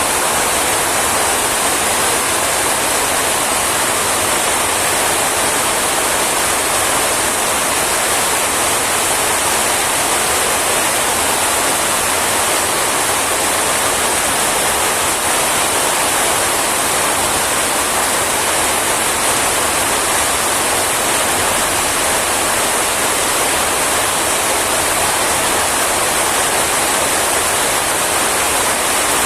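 Heavy rain falling, a steady, unbroken hiss of water.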